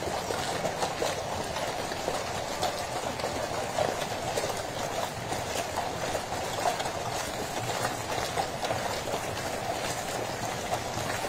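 The horse-drawn Gold State Coach rolling past, its wheels making a steady rumble on the road, with the horses' hooves clopping faintly through it.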